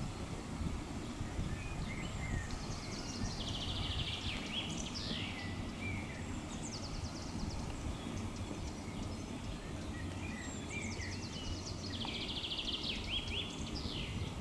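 A small songbird singing two songs, each a fast, high trill ending in a few quick falling notes, over a steady low background noise.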